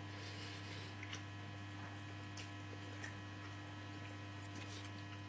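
Steady low electrical hum, with a few faint wet mouth clicks of a person chewing a mouthful of rice with his mouth open.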